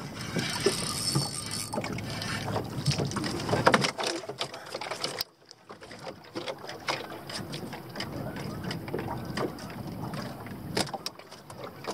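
Wind and water noise around a small fishing boat, with many short clicks and knocks. The level drops abruptly about five seconds in, leaving fainter scattered ticks.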